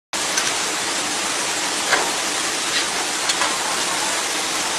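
Rice mill machinery running: a steady, dense rushing noise like grain pouring through the milling machines, over a faint low hum, with a few faint sharp ticks. It cuts in abruptly at the very start.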